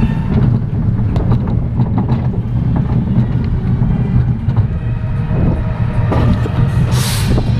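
Roller coaster car running along its steel track: a steady low rumble of the wheels on the rails with scattered clacks and rattles, and a brief loud hiss near the end.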